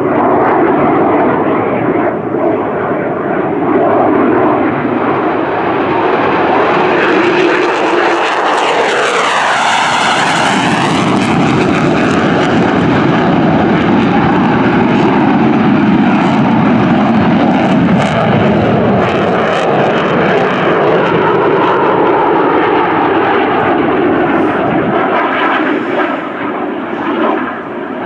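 Lockheed Martin F-22A Raptor's two Pratt & Whitney F119 turbofans, a loud jet roar as the fighter climbs away from a low pass over the runway and banks around overhead. About nine to eleven seconds in, a sweeping whoosh passes through the roar as the jet goes overhead, and the roar eases slightly near the end as it moves away.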